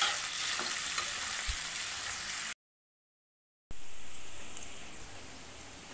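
Sliced onions frying in hot oil with whole spices, a steady sizzle. The sound cuts out completely for about a second midway, then the sizzle returns somewhat softer as the onions brown.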